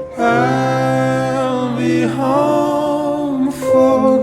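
Music with a singing voice holding long, gently bending notes over a steady low tone.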